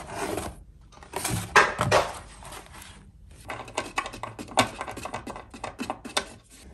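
Handling noises of fitting a ceramic drawer knob: rustling of a cardboard box, then irregular light clicks and taps as the knob's screw is pushed through a wooden drawer front.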